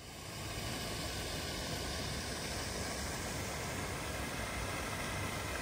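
Steady rushing noise with a low rumble, fading in at the start: wind on the microphone outdoors.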